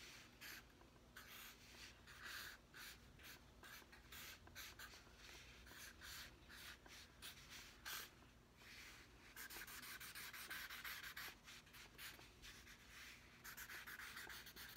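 Felt-tip marker drawing on sketchbook paper: many short, irregular scratchy strokes, with a few longer strokes a little past halfway and near the end. Faint.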